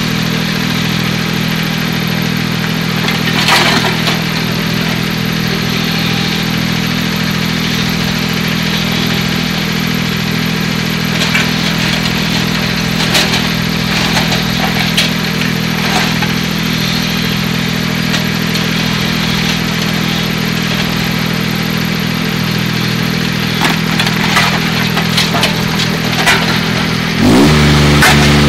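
Kubota U15-3 mini excavator's three-cylinder diesel engine running steadily while the machine digs, with scattered knocks and scrapes of bucket and stones. Near the end the engine note shifts and gets louder.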